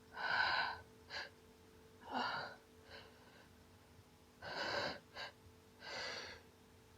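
A woman's quiet, breathy gasps, about six short catches of breath in a row, the hitching breaths of a hay-fever sneeze building up.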